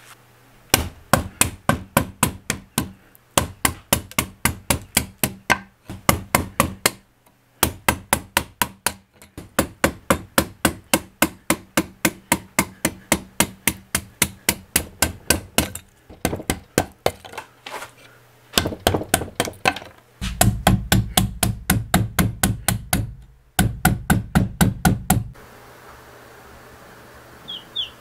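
Mallet striking a wood chisel in quick runs of blows, about five a second, with short pauses between runs, as the chisel cuts into a log to hollow out a trough. The blows stop a few seconds before the end.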